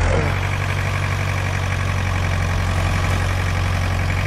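Farm tractor's diesel engine running steadily at a constant low drone.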